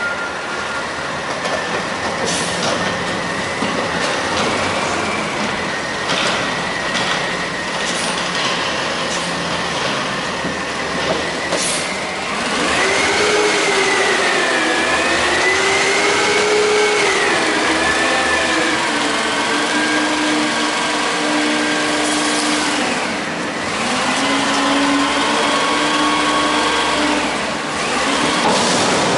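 CCC front-loader garbage truck running, with a steady engine noise at first. About halfway through, the engine revs up and a whine rises and falls with engine speed, eases off briefly, then comes back: the hydraulics are working the packer panel.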